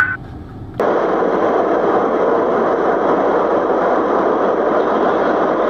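Steady road noise of a car cruising on a highway, heard from inside the cabin: an even rush of tyres, wind and engine that starts abruptly about a second in.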